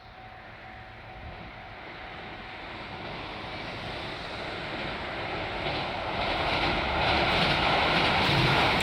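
A JR Shikoku diesel train approaching, its rumble growing steadily louder and levelling off near the end.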